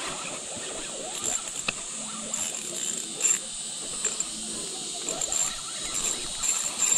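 Steady high-pitched insect buzzing, pulsing in brightness, with faint irregular noise underneath.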